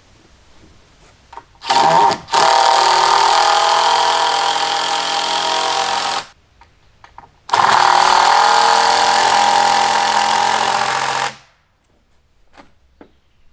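Power driver driving screws into wooden framing, in two long runs of about four seconds each; the first stops briefly just after it starts.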